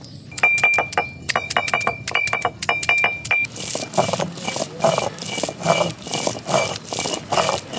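Metal kitchen utensils clinking and ringing: first a quick run of sharp strikes, then from about three and a half seconds in, steady rhythmic scraping strokes about once a second.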